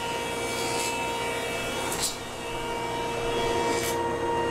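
Grizzly G0891 15-inch spiral-cutterhead planer running while it planes a board, with a steady machine sound and a brief sharp burst about two seconds in. The feed rollers carry the board through with no skipping thump, a sign that the retrofit idler kit has fixed the skipping feed rollers.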